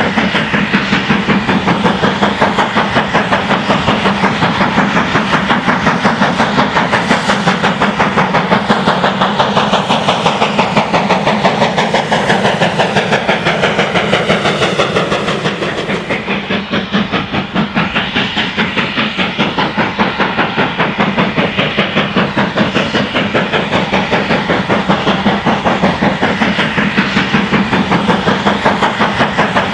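A GWR Manor class 4-6-0 steam locomotive working hard with rapid, even exhaust beats, its sound sweeping down as the engine and its coaches pass. About halfway through, it cuts to another steam locomotive working hard with the same steady beat.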